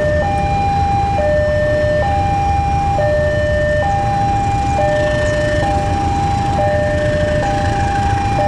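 Railway level crossing warning alarm sounding a steady two-tone hi-lo signal, each tone about three-quarters of a second, warning that a train is approaching. Under it is the low rumble of a diesel locomotive pulling a passenger train in slowly.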